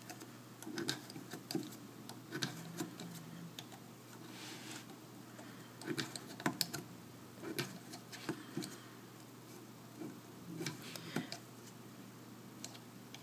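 Scattered light clicks and taps from knitting stitches off a knitting loom: the loom hook and fingers knocking against its plastic pegs, at an uneven pace.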